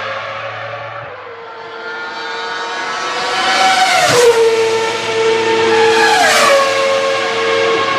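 Ferrari racing-car engine accelerating hard. The revs climb and drop sharply at an upshift about four seconds in, then climb again and drop at a second upshift about two seconds later, as the car draws closer and gets louder.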